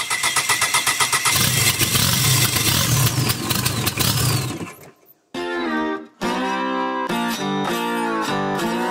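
Mitsubishi 4M40 2.8-litre diesel engine, running on a stand out of the vehicle, cranking briefly, then catching and running while blowing white smoke. It is the engine's first start after being pulled from a scrapyard van. About five seconds in it cuts off, and acoustic guitar music plays.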